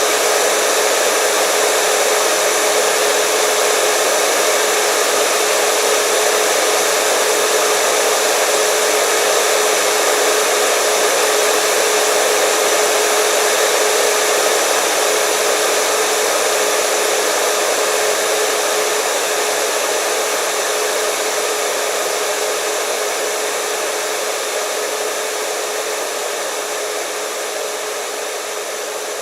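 Hair dryer running steadily: a rush of blown air over a constant motor hum, slowly getting quieter over the second half.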